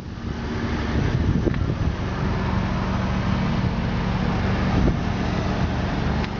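Steady low hum of a vehicle engine idling, with an even rushing noise over it.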